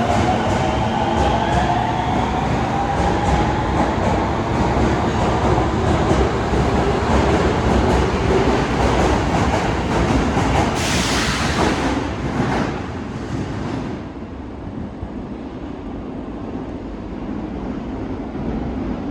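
Osaka Metro Tanimachi Line subway train pulling out of the station: the motor whine rises in pitch as it speeds up, with wheels clicking over the rail joints. A broad rush of noise comes about 11 seconds in, and the sound drops away a few seconds later as the train leaves.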